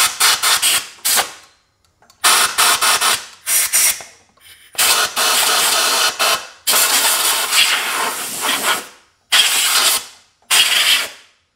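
Compressed-air blow gun on a shop compressor hose, blasting dust out of a side-by-side's CVT drive clutch. It fires in loud hissing bursts: a quick run of short blasts, then several longer blasts of a second or two each, with brief pauses between.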